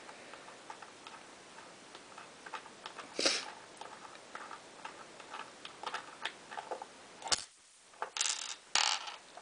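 Small irregular metal clicks and scrapes of a Schlage-style key-in-knob lock being taken apart by hand, with a sharp click about seven seconds in and a few short scraping rustles.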